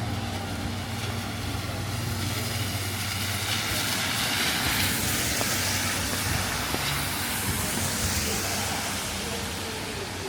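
Traffic on a wet city street: a low engine hum fades over the first couple of seconds, then a vehicle's tyres hiss on the wet road as it passes, loudest around the middle.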